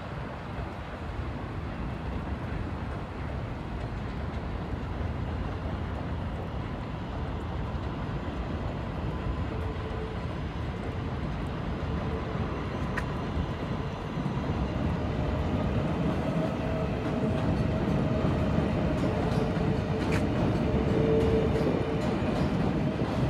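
New York City Subway L train running along the elevated tracks, its rumble growing louder as it approaches. A steady whine is joined by lower humming tones about halfway through, with a few sharp clicks.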